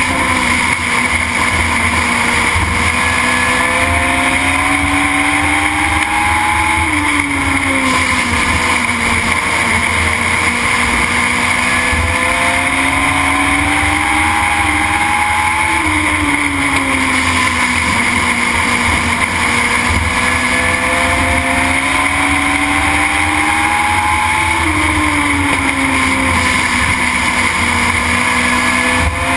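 Legend race car's Yamaha four-cylinder motorcycle engine at racing speed, heard from inside the car: its note climbs on the straights and drops off through the turns, about every eight or nine seconds, over steady loud wind and road noise.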